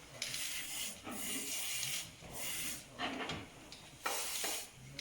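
Repeated short rasping, hissing strokes, about one a second, like a tool being scraped or rubbed back and forth.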